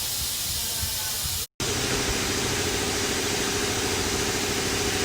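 Compressed air hissing steadily through a venturi coolant vacuum-fill tool drawing a vacuum on the cooling system. About a second and a half in, the sound cuts out and is replaced by a steady machine hum with a pitched drone under the hiss.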